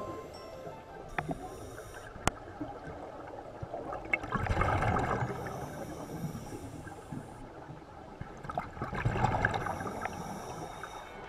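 Scuba divers breathing through regulators underwater: exhaled bubbles burble up twice, about four and nine seconds in, each followed by a thin hiss of inhalation, with a few small clicks.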